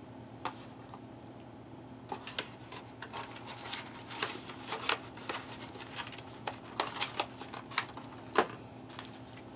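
Scattered light clicks and crackles of plastic ration packets being handled out of view, over a steady low hum.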